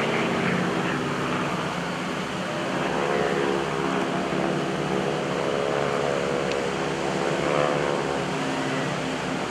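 North American T-6 Texans' nine-cylinder Pratt & Whitney R-1340 radial engines and propellers droning in formation flight: a steady many-toned hum whose pitch sways up and down slightly through the middle.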